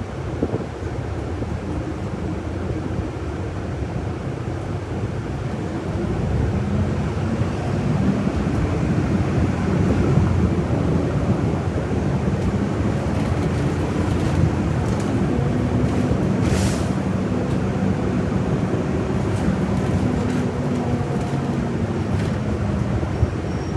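City bus running on the road, heard from inside the cabin: a steady engine and road rumble with a drive tone that rises and falls as the bus speeds up and slows. A short burst of hiss comes about two-thirds of the way through.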